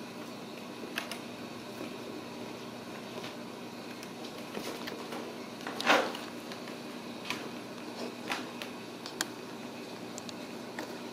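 Ragdoll kittens playing on a cardboard scratcher: scattered light taps and claw scratches, the loudest a short scrape about six seconds in, over a steady background hum.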